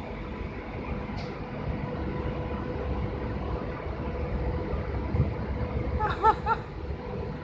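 Uneven low rumble of wind on the microphone under a steady mechanical hum from the plant. About six seconds in there is a brief, short voice-like call.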